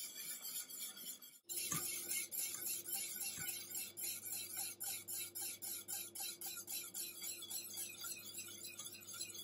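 Wire whisk stirring milk in a stainless steel saucepan, a rhythmic swish and light scrape against the pot about two or three times a second, with a steady low hum behind it from about a second and a half in.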